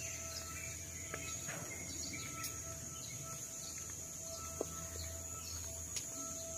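Steady outdoor ambience: a high, even insect drone over a low rumble, with a few faint ticks.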